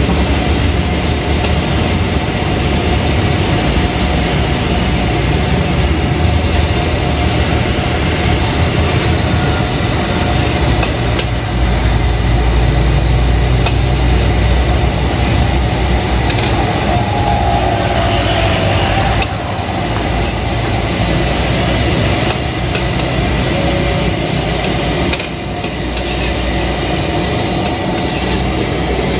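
Gas wok burner roaring steadily under a wok, with eggs frying in oil and a steel ladle scraping and knocking against the wok.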